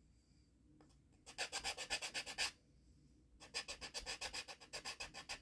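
Edges of cured resin being sanded down by hand, in quick back-and-forth scratchy strokes at about ten a second. The strokes come in two bouts: the first about a second in, the second starting about a second after it stops.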